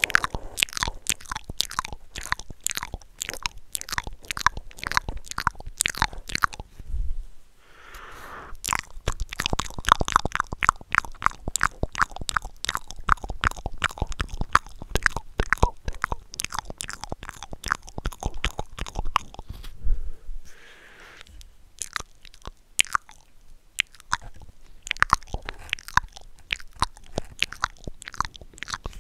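Cupped mouth sounds made with both hands around the mouth pressed close to a foam-covered microphone: quick clicks and pops, several a second, in three runs broken by short pauses about seven and twenty seconds in.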